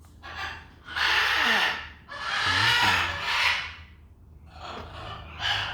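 Parrot giving two long, raspy, breathy calls of about a second each, then a shorter one near the end.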